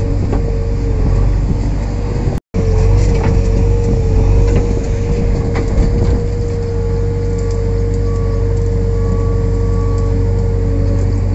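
JCB 3DX backhoe loader's diesel engine running under load, heard from inside the cab, with a steady whine and a few light knocks as the backhoe digs. The sound cuts out for a moment about two and a half seconds in.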